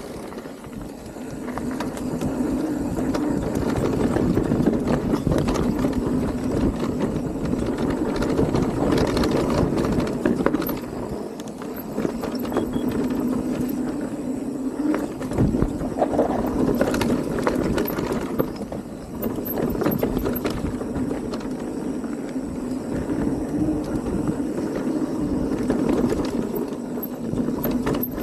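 Radon Deft e-mountain bike riding down a dirt trail: knobby tyres rumbling over the ground, with many short clicks and knocks from roots, stones and the rattling bike.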